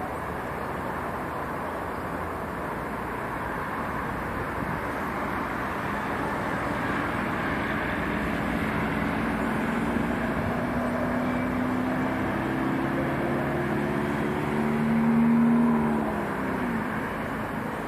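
City traffic ambience: a steady wash of road traffic noise. A motor vehicle comes closer and passes, loudest about fifteen seconds in, its engine note dropping in pitch as it goes by.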